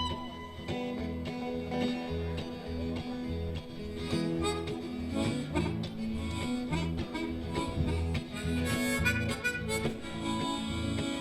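Live blues band playing an instrumental passage: a harmonica leads over guitar and a steady, pulsing bass beat.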